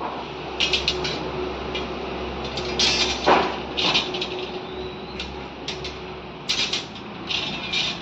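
Steel reinforcing bars clinking and scraping against each other and the concrete floor as they are laid and tied into a mesh, in short irregular rattles with one sharper knock about three seconds in.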